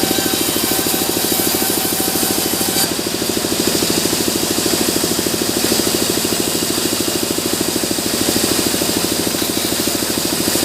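Sawmill machinery running steadily, a loud, fast and even pulsing with no break.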